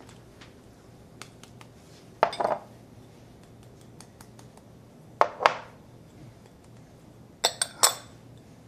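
Small glass prep bowls clinking against glass, a few sharp ringing clinks a couple of seconds apart with faint taps between, as ground spices are tipped out of them into a larger glass mixing bowl.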